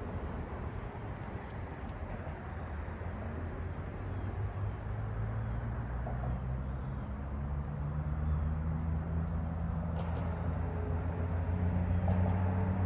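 Road traffic: a vehicle engine's low hum grows louder through the second half, over a steady rumble. A short high bird chirp about six seconds in.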